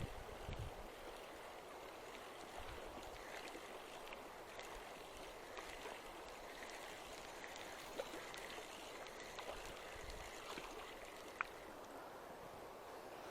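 Steady rush of a fast mountain river, with a couple of faint clicks.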